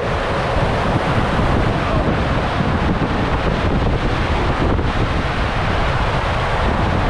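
Steady loud rush of water and air as an inflatable raft slides down an enclosed tube waterslide.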